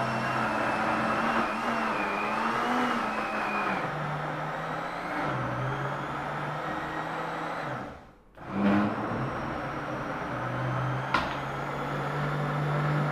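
A steady motor hum whose pitch shifts a few times. It drops out briefly about eight seconds in, and there is a single sharp click near the end.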